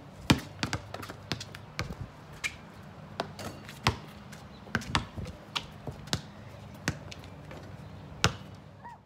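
Basketballs bouncing on a concrete driveway: irregular sharp thuds, a few a second, from several balls.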